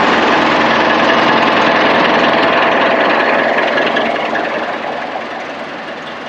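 Engine running loud and close, with a dense knocking rattle, then fading gradually over the last two seconds or so.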